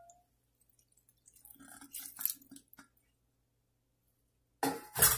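Chicken stock settling into a pan of vegetables, with faint dripping and small liquid sounds, then one loud knock near the end.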